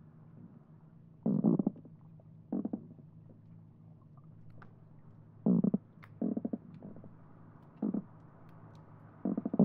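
Croakers calling underwater, heard through a hydrophone: about seven short bursts of rapid knocking pulses, drummed on the swim bladder as spawning calls, spaced irregularly a second or more apart. A steady low hum and faint scattered clicks of snapping shrimp lie underneath.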